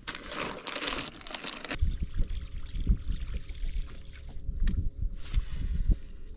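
A short burst of splashing water, then a low, uneven wind rumble on the microphone with a few sharp knocks and a faint steady hum underneath.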